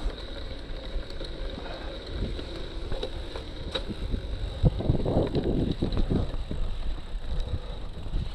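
Cyclocross bike coasting over sandy dirt: tyre rumble and rattle of the bike, with wind on the microphone. About five to six seconds in the ground gets rougher and there is a louder cluster of knocks and rumble.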